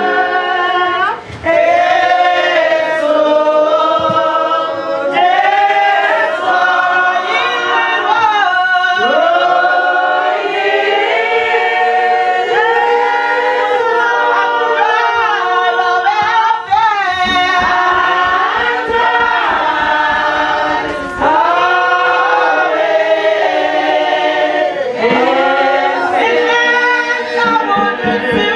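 Congregation singing a hymn together, mostly unaccompanied, many men's and women's voices. A low, quick beat joins for a few seconds past the middle.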